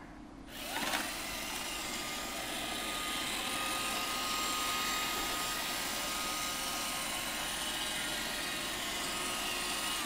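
iRobot Roomba 560 robot vacuum's motors and brushes spinning up with a rising whine about half a second in, running steadily, then winding down with a falling whine near the end.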